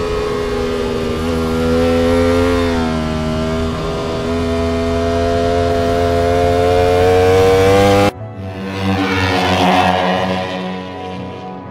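Ducati Panigale V4R's V4 engine running at high revs under acceleration, its pitch climbing slowly with brief dips near 1.3 and 4 seconds in. About 8 seconds in, the sound cuts abruptly to a thinner, differently coloured stretch.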